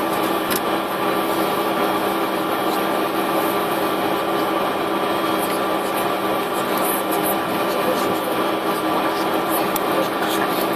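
Steady hum with several fixed tones from a parked Tu-204's onboard systems, heard inside the cabin, with a few faint clicks and rustles.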